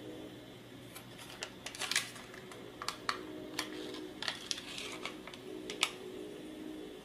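Protective paper being peeled off the robot car's acrylic chassis plate: a run of sharp crackles and clicks of the backing tearing away and fingers catching the plate's edge, busiest in the middle.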